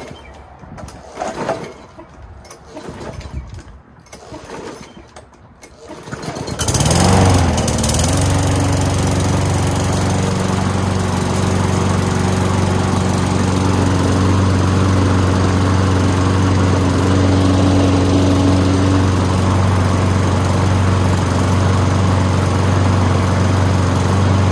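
Petrol walk-behind lawn mower engine starting: a few seconds of short irregular noises, then about six seconds in it catches, rises quickly in pitch and settles into steady running.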